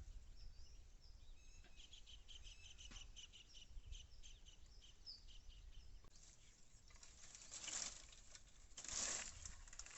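Faint outdoor ambience with small birds chirping in short repeated calls, and two brief scuffing noises near the end.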